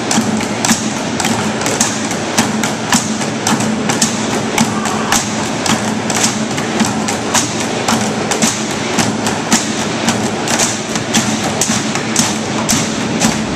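Found-object percussion ensemble playing on plastic barrels, buckets and metal discs: a steady, driving rhythm of sharp strikes, about three to four a second, from many players together.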